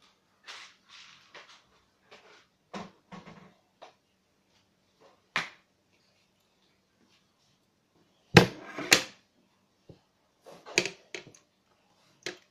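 Scattered knocks and bumps in a small room, with two loud knocks a little over eight seconds in, about half a second apart.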